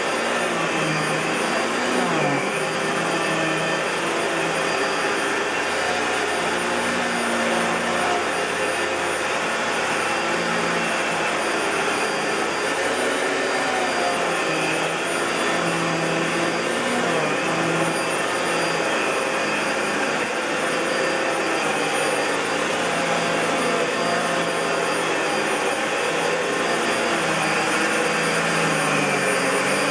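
1999 Fantom Lightning LC56-00 bagless cyclonic canister vacuum cleaner running steadily, its low hum wavering slightly in pitch.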